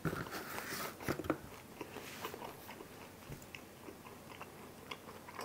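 Close-miked eating sounds: a piece of pizza is pulled from the box and chewed, with soft crunches and small clicks. They are busiest in the first second and a half, then sparse.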